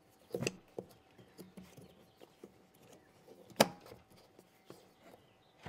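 Plastic clicks and knocks of Yakima universal snap-around round-bar adapters being fitted by hand onto the taped handle of a hard plastic rifle case, with one sharp, loud click about three and a half seconds in.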